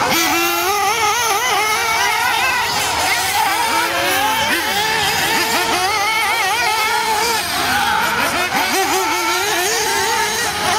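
Several 1/8-scale nitro R/C buggies and truggies racing together, their small glow engines whining and revving up and down without pause, many overlapping pitches wavering against each other.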